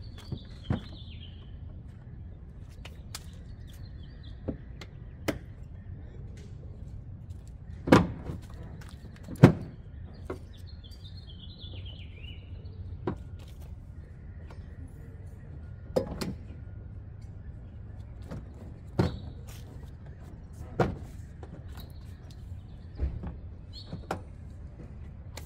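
Subaru Outback Wilderness's plastic rear bumper cover being pressed back onto the car, its clips snapping into place with a sharp click or knock every few seconds, about ten in all; the two loudest come about a third of the way in. Birds chirp now and then.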